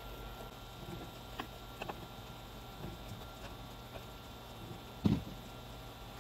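Kitchen knife chopping canned whelks on a cutting board: scattered light taps of the blade on the board, with one heavier knock about five seconds in.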